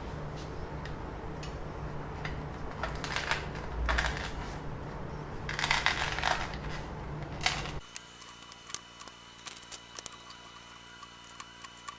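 Clicks and rustling of small objects being handled over a steady room hum, louder in a few bursts. About eight seconds in, it cuts suddenly to a quieter steady electrical hum with light, rapid ticking.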